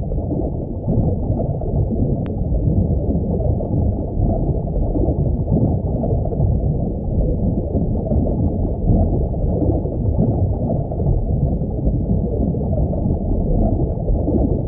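Underwater ambience sound effect: a dense, muffled rumble and gurgle of water, deep with no highs, held at a steady loudness.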